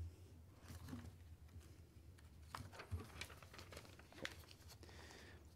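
Near silence: room tone with a faint low hum and a few faint clicks and rustles.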